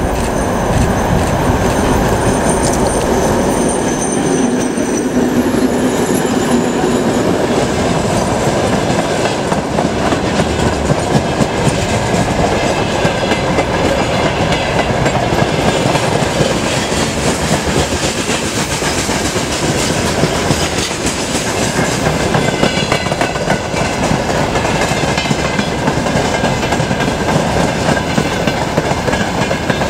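A heavily loaded freight train passing close by, hauled by a 2M62 twin-section diesel locomotive whose engines are heard in the first few seconds. Then comes a long, steady rumble and clatter of the freight wagons' wheels over the rails.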